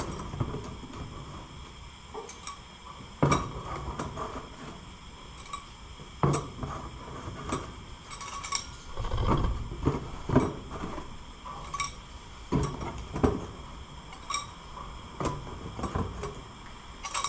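Small metal engine parts clinking and clattering, irregularly, as they are removed from a gas engine being torn down and set into a box one by one.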